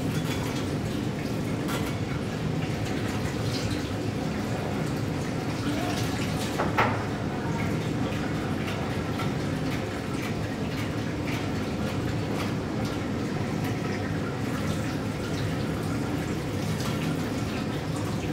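Water running and splashing as a stainless steel film developing tank is filled with rinse water and poured out into a sink, with one sharp knock about seven seconds in.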